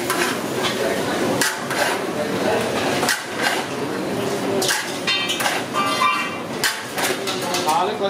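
A metal spatula stirring and tossing sliced eggplant in a large metal kadai, knocking and scraping against the pan with sharp clanks that come in pairs about every second and a half.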